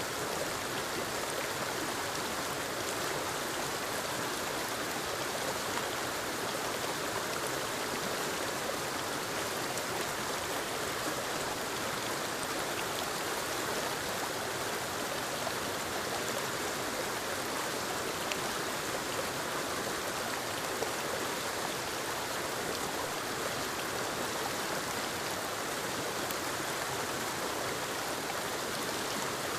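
Small forest waterfall and creek: water tumbling over rocks in a steady, even rush.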